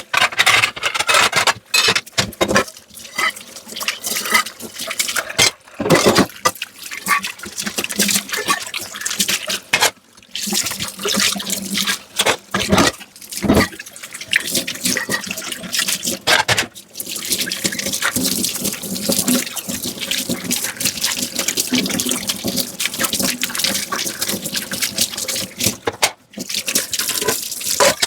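Washing dishes at a kitchen sink: tap water running and splashing over the dishes, with short clatters and a few brief breaks.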